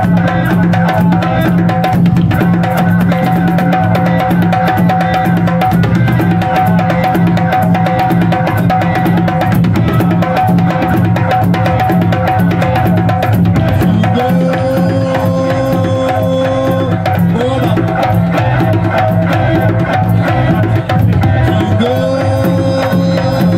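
Live Afro-jazz fusion band playing: hand drums (djembe) keeping a steady beat under electric guitar. A long held note slides up into pitch about two thirds through, and again near the end.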